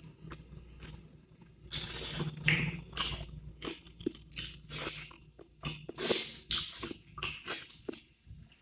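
A person chewing and crunching food close to the microphone, irregular crunches with a few louder ones about two, three and six seconds in.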